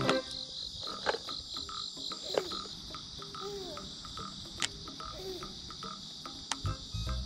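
Outdoor riverside ambience: a steady high chirring of insects in the grass, with a short call repeating about twice a second and a couple of faint rising-and-falling calls. A few sharp clicks come from fishing tackle being handled.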